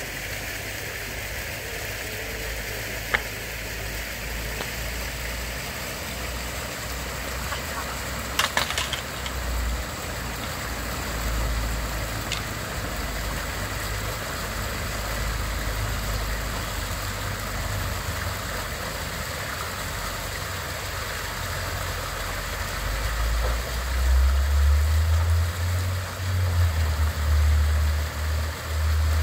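Water jets of an outdoor fountain splashing steadily, with an uneven low rumble underneath that grows heavier near the end. A single sharp click comes about three seconds in, and a short cluster of clacks a little after eight seconds.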